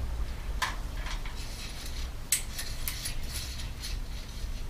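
Electrical light cable being pulled back through the inside of a bicycle frame tube, drawn by an old brake inner wire: short scrapes and small metallic clicks as the wires rub against the frame, a handful of them, the sharpest about two seconds in.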